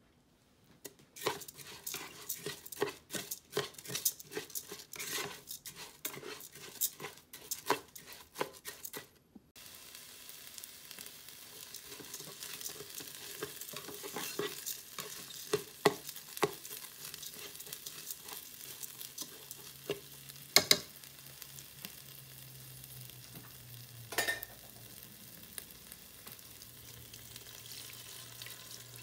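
A spoon stirring raw rice and butter in a rice cooker's non-stick inner pot: a busy run of scrapes and grain rattles, then a steady hiss with scattered clicks and a few sharper knocks against the pot.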